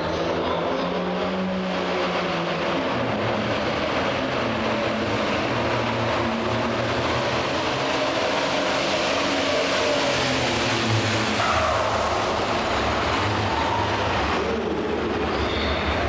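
White hot farm pulling tractor's turbocharged diesel engine launching and running at full throttle as it drags the weight-transfer sled down the track. About eleven and a half seconds in the engine comes off throttle and the sound drops away.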